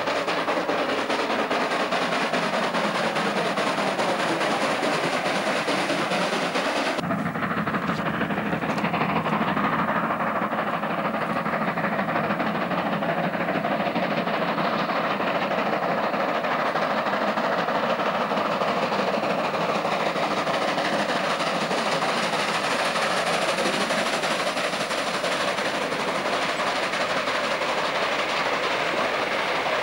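Steam locomotive exhaust beating from the chimney as it works hard hauling a loaded ore train, with the rumble of the wagons on the rails. The sound changes abruptly about seven seconds in.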